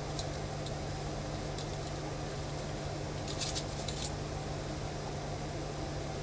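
Pencil tracing along the edge of a paper template, with a few short scratches and paper rustles about three and a half to four seconds in, over a steady low electrical hum.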